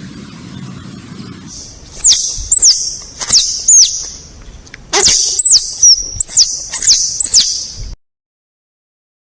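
A low, rushing noise, then about ten short, very high-pitched animal squeaks in quick groups, each sliding sharply down in pitch. They stop suddenly about eight seconds in.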